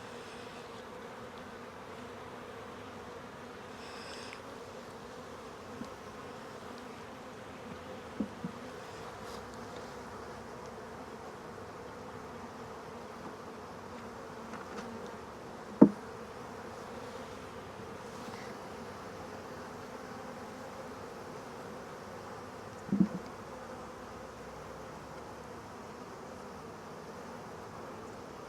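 Honey bees buzzing in a steady hum, broken by a few brief knocks, the loudest about halfway through.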